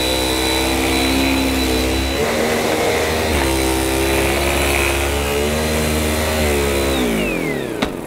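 Goblin upright vacuum cleaner running on carpet with its head set to high pile, a steady motor hum with a thin high whine, its pitch dipping and rising again as it is worked back and forth. Near the end it is switched off and the motor winds down in a falling whine, followed by a single click.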